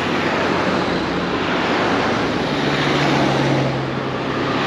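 Cars passing close by on a city street: a steady rush of tyres and engines, with a low engine hum joining about halfway through.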